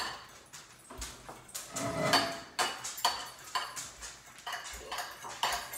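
A utensil clicking and scraping against a bowl as eggs are stirred, in quick irregular taps. A short whining, voice-like sound comes about two seconds in.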